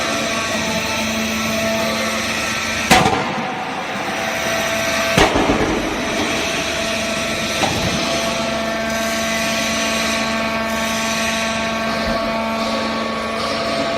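Hydraulic foam baling press running with a steady mechanical hum from its pump and motor. Two sharp bangs sound about 3 and 5 seconds in, and a lighter knock comes near 8 seconds.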